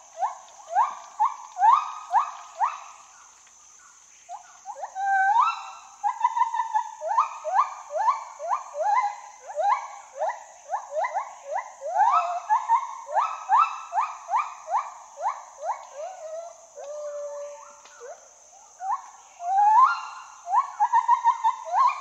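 Gibbon calling: long series of hoots, each note sweeping upward, two or three a second, with a brief lull about four seconds in. A steady high hiss runs underneath.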